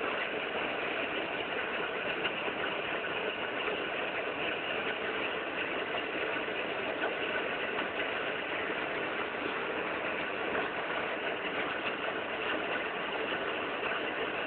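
A boat's engines running steadily at constant speed, with an even drone that does not change.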